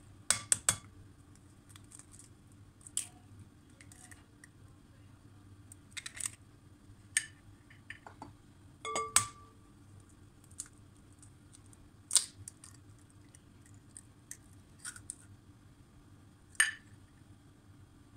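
Scattered sharp taps and clicks of hands working with a glass bowl: the bowl set down on a bamboo mat, then two eggs cracked open into it, with the shells knocked and put aside.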